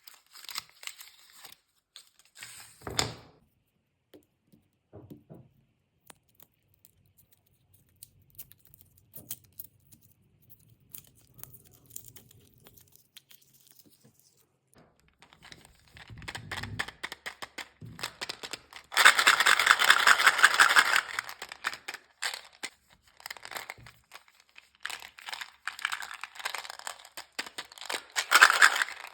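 Plastic candy wrappers being handled, crinkled and torn open, in scattered crackles, with a louder stretch of continuous tearing and crinkling for about two seconds past the middle and more crinkling near the end.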